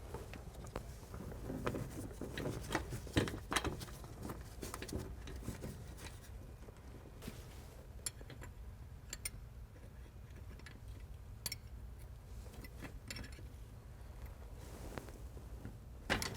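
Scattered light clicks and clinks of metal brake-line parts and hand tools being handled, over a steady low hum.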